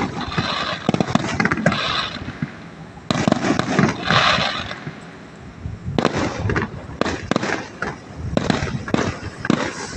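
Fireworks going off: many sharp bangs with stretches of dense crackling, easing briefly about halfway through before the bangs pick up again.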